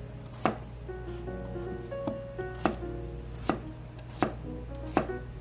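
Kitchen knife slicing peeled potatoes on a cutting board: five sharp chops of the blade hitting the board, unevenly spaced.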